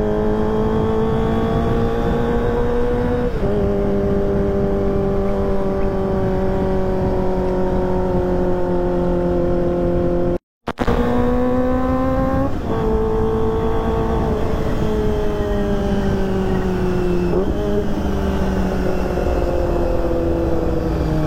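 Kawasaki ZX-25R's 250 cc inline-four running through a short ProLiner TR2 full-system exhaust while riding. The exhaust note rises, drops sharply at gear changes and eases back, with a rough, raspy character. It cuts out briefly about halfway through.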